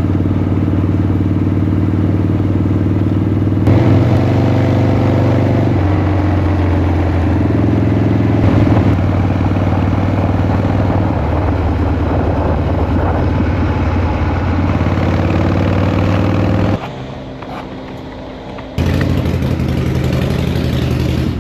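Air-cooled Harley-Davidson Shovelhead V-twin motorcycle engine running while the bike is ridden, its pitch stepping up and down with throttle and gear changes. It drops to a quieter, lower sound for about two seconds near the end, then picks up again.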